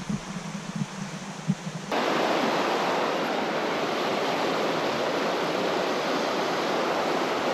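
Steady rush of a rocky mountain trout stream running over stones, an even hiss that cuts in abruptly about two seconds in after a quieter stretch with a few faint short sounds.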